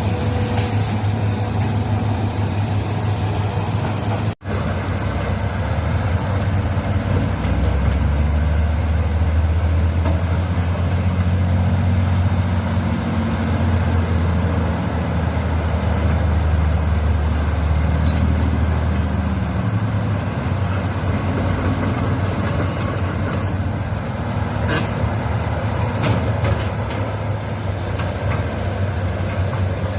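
Hitachi hydraulic excavator's diesel engine running steadily, with a momentary dropout about four seconds in. Its low note deepens and grows stronger for about twelve seconds in the middle.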